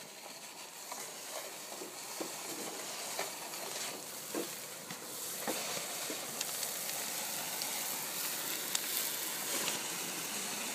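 Gutter vacuum sucking wet sludge and debris out of a roof gutter through its pole: a steady high rushing hiss with scattered clicks and crackles as the debris is drawn in.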